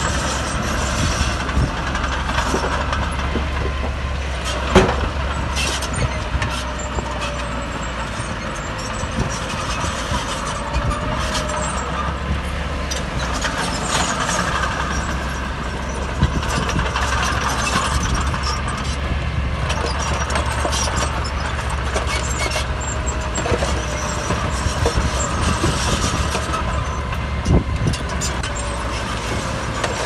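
Heavy diesel earthmoving machinery running steadily under load, with a constant low engine drone and scattered metal clanks and rattles. A sharp knock comes about five seconds in and another near the end.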